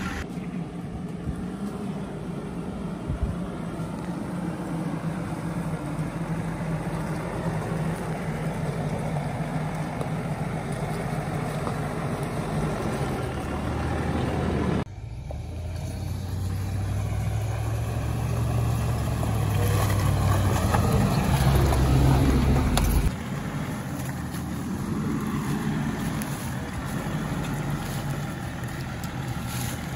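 A 4x4's engine running as it drives off-road, a steady hum at first. About halfway the sound changes abruptly: the engine gets louder and climbs in pitch for several seconds, then drops off suddenly to a quieter hum.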